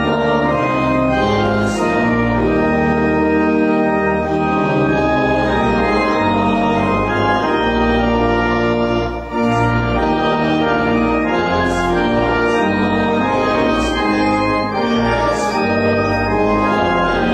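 Organ music: sustained chords held and shifting from one to the next, with a brief break between phrases about nine seconds in.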